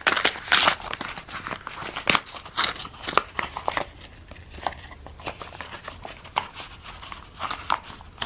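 A taped orange paper envelope being torn open by hand: irregular ripping and crinkling of paper and tape, busiest in the first half.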